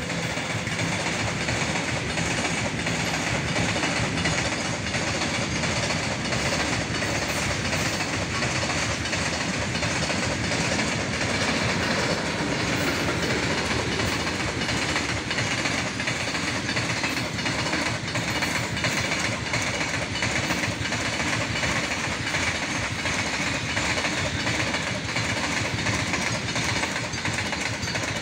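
A loaded goods train's open wagons rolling steadily past, with a continuous clatter of steel wheels over the rails.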